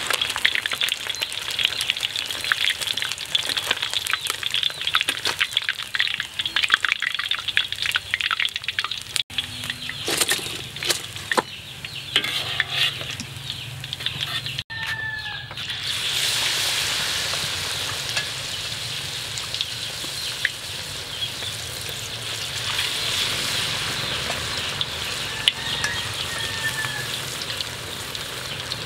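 Battered frog pieces deep-frying in hot oil in a wok, a dense crackling sizzle as they are turned with tongs. About a third of the way in it gives way to a quieter stretch with a few clicks. Then fresh battered pieces bubble hard in the oil with a steady, louder sizzle.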